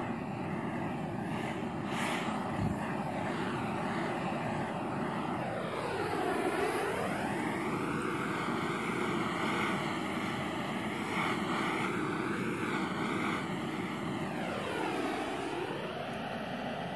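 Handheld propane torch burning with a steady hiss, heating the end of black polyethylene pipe to soften it for a barbed fitting. The tone swoops down and back up twice, about six seconds in and near the end, as the flame is moved.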